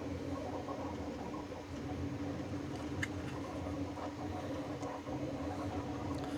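Steady mechanical hum with a constant mid-pitched tone, and a faint click about three seconds in.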